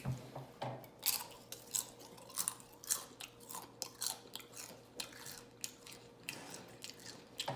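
A person chewing food close to the microphone with open-mouth smacking: irregular wet clicks and crunches, several a second.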